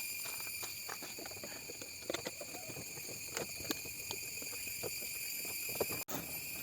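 Scattered light taps and clicks at an irregular pace over a steady background hiss.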